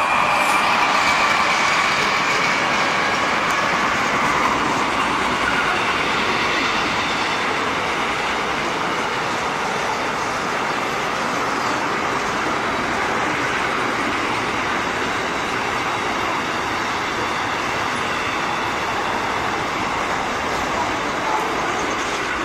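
Container freight train's wagons rolling past: a loud, steady rush of steel wheels on rail.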